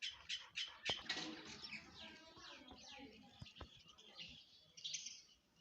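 Mynas and sparrows chirping in a busy overlapping chorus of short, high calls and quick falling notes, thickest in the first second and a half, thinning out, then a short flurry near five seconds.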